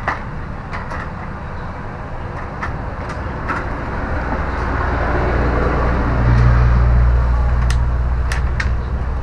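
A motor vehicle's engine passing by, swelling over a few seconds and fading again, over a steady traffic rumble, with a few light clicks.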